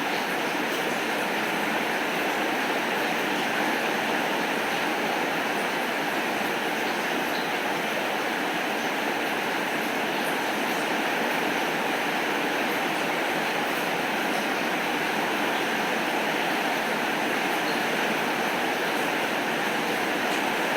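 Heavy rain falling steadily, an even unbroken hiss with no thunder.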